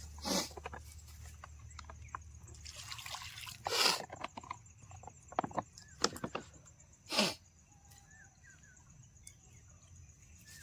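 Several short splashes and drips of water, a few seconds apart.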